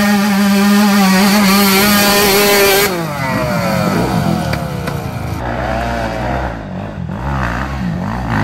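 Off-road motorcycle engines revving hard on a steep climb. A steady, high-revving note is held for about three seconds and then drops away suddenly. After that, lower, uneven revving rises and falls, from more than one bike.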